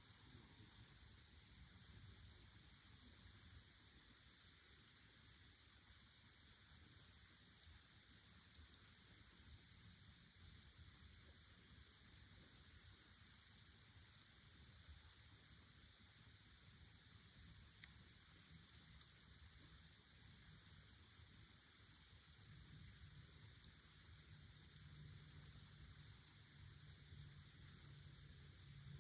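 Night-time chorus of crickets, a continuous high-pitched chirring that holds steady throughout.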